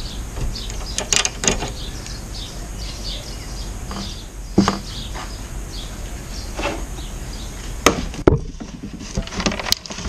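A handful of sharp clicks and knocks of hand tools and small metal parts as the carburettor fuel bowl on a Honda GX200 engine is undone and taken off.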